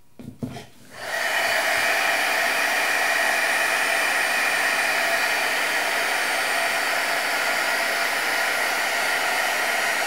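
A few handling knocks, then an electric heat gun switches on about a second in and blows steadily, with an even rushing hiss. It is heating heat-shrink tubing to shrink it down.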